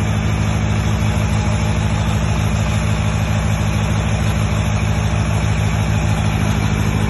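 Diesel engine of a 50 kVA open-frame, trolley-mounted generator set running steadily at constant speed, with an even low-pitched beat.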